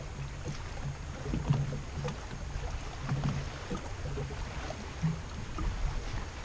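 Water lapping against the hull of a small fishing boat, with a light wash of wind and scattered faint clicks and knocks.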